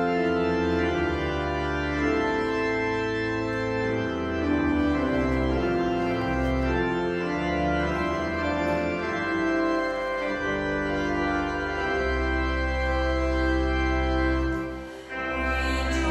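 Organ playing slow, sustained chords over a deep held bass note, with a brief break about a second before the end.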